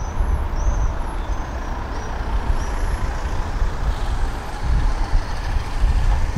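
Low rumble of road traffic on a city street, with a small bird chirping repeatedly, about twice a second, over the first few seconds.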